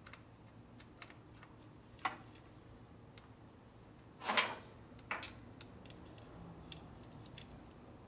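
Scattered small clicks and taps of hands handling wiring and small metal parts on a motorcycle engine, with a louder short rustle about four seconds in and another sharp click a second later.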